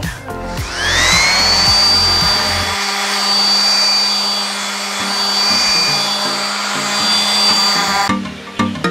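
DeWalt electric random orbital sander with 220-grit paper starts up, its motor whine rising as it spins up. It then runs steadily, sanding painted wood. It stops abruptly about 8 seconds in.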